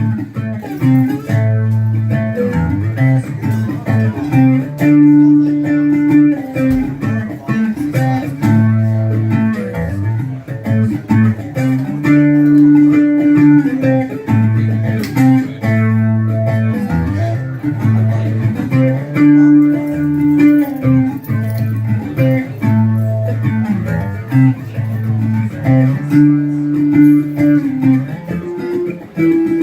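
Instrumental break in a song: guitar playing a repeating melodic phrase over a bass line, with no singing.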